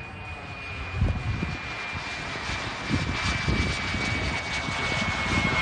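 A radio-controlled Shock Jet's model turbine engine whines in flight. The steady high whine sinks slightly in pitch and grows louder as the jet comes closer. Low rumbles of wind hit the microphone.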